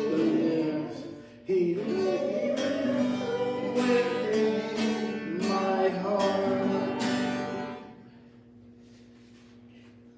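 Worship music: an acoustic guitar strummed in a steady rhythm with a voice singing along. The strumming stops about eight seconds in, leaving a faint steady hum.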